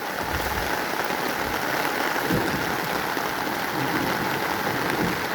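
Heavy rain falling in a steady downpour, an even hiss with a few faint dull thumps.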